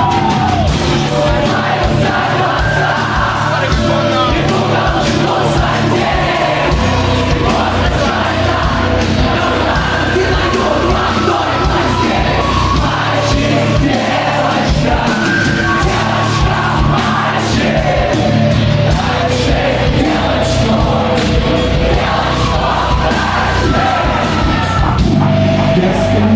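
A rock band playing live: drums, electric guitars and bass at full, steady volume, with singing.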